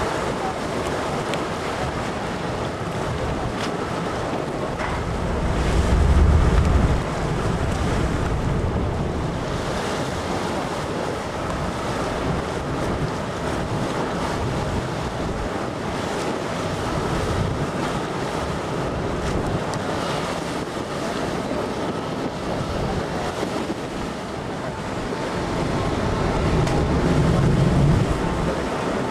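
Wind buffeting the microphone over the steady rush of a departing car ferry's engines and churning harbour water, with two stronger low gusts, about six seconds in and near the end.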